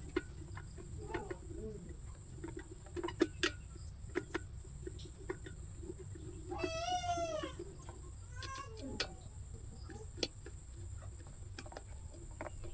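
A cat meows once, a single drawn-out call that rises and falls in pitch, over scattered small clicks and taps.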